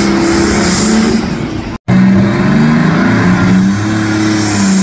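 A pulling truck's engine running loud, its pitch shifting up and down. The sound cuts out for an instant about two seconds in.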